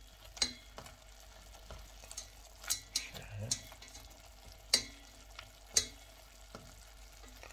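Black tongs stirring pieces of meat in a stainless steel pot, with about half a dozen sharp knocks of the tongs against the pot over a faint steady sizzle of the meat cooking in oil and its juices.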